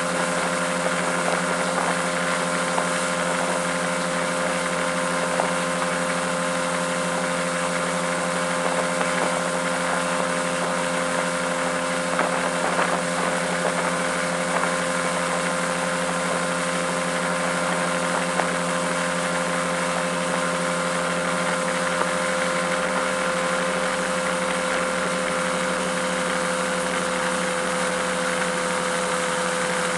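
Mercury 200 outboard motor running at a steady high speed while towing a barefoot water skier, its engine note unchanging, over the hiss of spray and wake.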